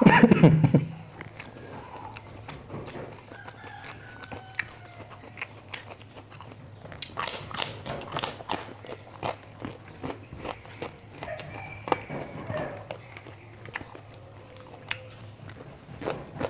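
Close-up mukbang eating sounds: chewing and crunching of fried rice and onion prawn crackers eaten by hand, with many short wet mouth clicks, densest about halfway through. A brief loud sound fills the first second, and a low steady hum sits underneath.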